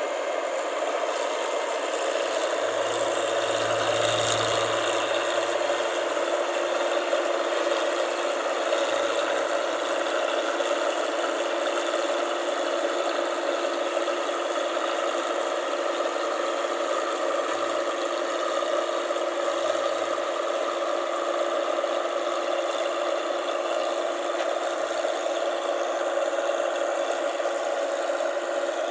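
Rice combine harvester running steadily, its engine and machinery giving a constant mechanical drone.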